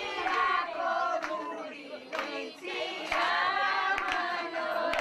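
A group of women singing a folk song together, with a few hand claps.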